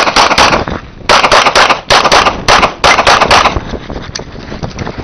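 Rapid strings of handgun shots, about four to five a second, fired in bursts with brief pauses between them; the firing stops about three and a half seconds in.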